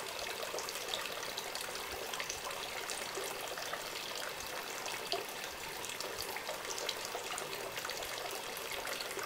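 Running water trickling and splashing steadily, a continuous hiss dotted with many small droplet splashes.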